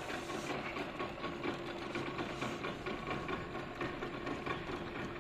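Small engine running steadily, a fast rattling drone with a constant hum.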